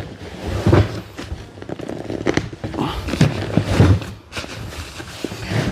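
Straps being pulled and adjusted around a packed swag bag: a run of rustling, clicks and knocks from fabric and fittings being handled.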